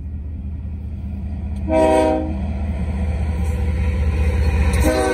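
Canadian Pacific diesel freight locomotive approaching a level crossing, its low engine rumble growing louder. It sounds its horn for the crossing: a short blast about two seconds in, then a long blast starting near the end.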